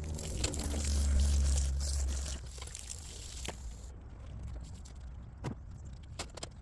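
Water pouring onto the truck's sheet-metal roof for about four seconds, rinsing it during cleaning, then a few light knocks and clicks.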